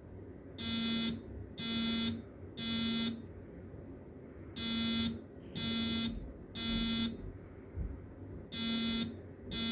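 Fire alarm voice evacuation system sounding its evacuation alert tone in the temporal-three pattern: a buzzy, horn-like tone in groups of three half-second pulses about a second apart, each group starting about four seconds after the last.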